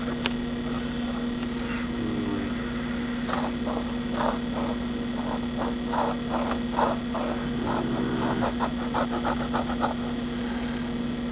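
1940s Sheaffer Fineline fountain pen nib writing on paper in a run of short strokes, pressed down to test its flex, over a steady electrical hum.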